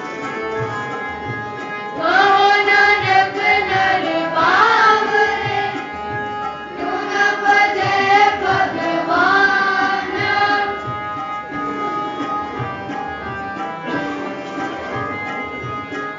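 Shabad kirtan: voices singing a Gurbani hymn over a steady harmonium and tabla. The singing comes in loud about two seconds in and drops away after about ten seconds, leaving harmonium and tabla playing on.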